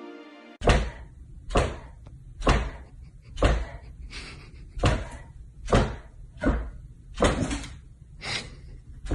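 Golden retriever's tail thumping on a hardwood floor as it lies stretched out: about ten dull thumps, roughly one a second.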